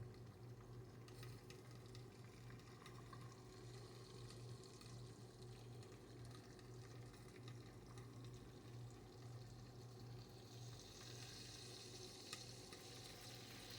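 Faint, steady low hum of a stirring popcorn popper running while it heats the kernels. A soft sizzle of the heating oil grows near the end, with one small click, before popping is in full swing.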